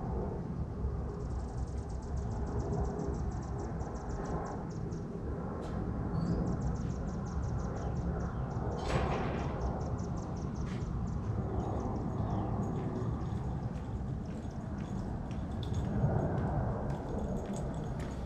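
Outdoor ambience: a steady low rumble, with rapid high-pitched ticking trills twice in the first half and scattered sharp clicks. Footsteps approach near the end.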